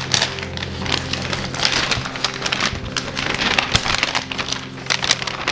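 Mailer packaging crinkling and rustling in quick, irregular crackles as it is handled and moved.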